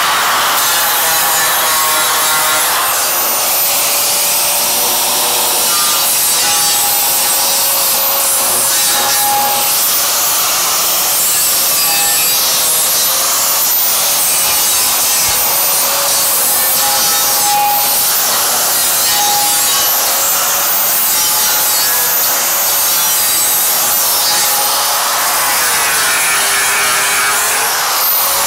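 Electric angle grinder grinding a steel frame, its motor whine running steadily under a grinding hiss. Near the end the pitch sags for a couple of seconds as the grinder is pushed hard, then recovers.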